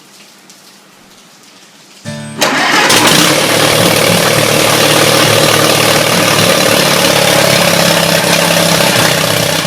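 Allis-Chalmers WD tractor engine kicking in suddenly about two seconds in, then running loud and steady.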